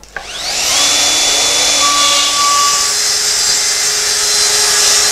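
Festool TS 55 plunge-cut track saw starting up with a rising whine and then running steadily as it cuts along its guide rail through a sheet of plywood.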